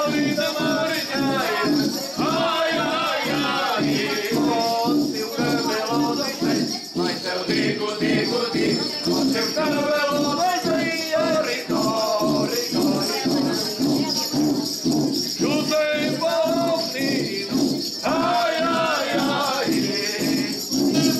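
A group of men sing a Christmas folk song over roncas, Portuguese friction drums sounded by rubbing a cane stick pushed through the drumhead. The drums give a low, rhythmic pulse a few beats a second under the held sung notes.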